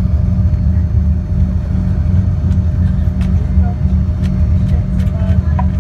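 Steady low rumble and hum of an Embraer 145 regional jet's cabin as the aircraft taxis after landing, with a faint steady whine above it.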